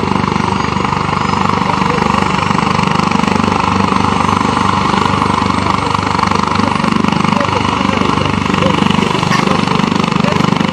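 Helicopter running on the ground with its rotors turning: steady engine noise under a fast, even chopping beat from the rotor blades.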